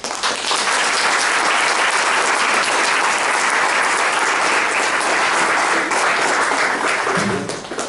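Audience applauding: a steady round of clapping that starts at once and dies away near the end.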